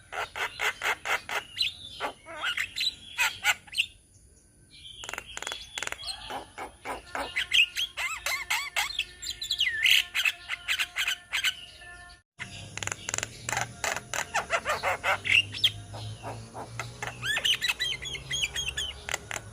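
A flock of Javan mynas (jalak kebo) chattering: rapid harsh clicking notes mixed with squawks and short whistled phrases. The calls pause briefly about four seconds in and cut off abruptly for a moment about twelve seconds in.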